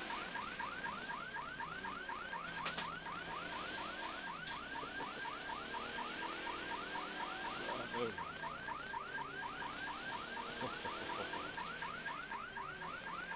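Electronic siren on a rally car sounding a fast yelp: rapid rising whoops, about four a second, without a break. The car's engine runs faintly underneath.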